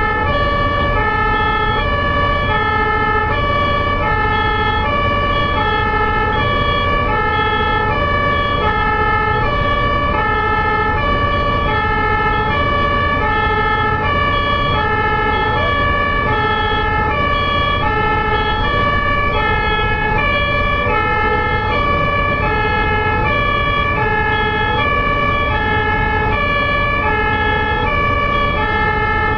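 Ambulance siren sounding a two-tone hi-lo call, switching evenly between a high and a low note throughout, loud over the low rumble of traffic.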